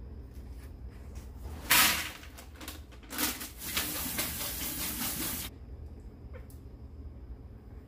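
Water from a kitchen tap running into a stainless steel sink. There is a short loud burst just under two seconds in, then a steady run of about two and a half seconds that stops abruptly.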